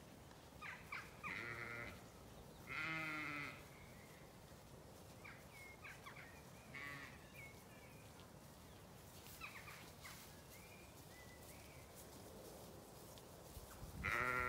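Zwartbles sheep bleating: a long wavering bleat about three seconds in, shorter ones before and near seven seconds, and a loud bleat at the very end, with short bird calls in between.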